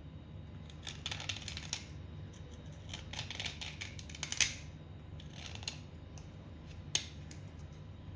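Thin metal blade scraping shavings off a soaked white clay block, in short runs of gritty strokes with pauses between them, and one sharp tick about seven seconds in. A steady low hum sits underneath.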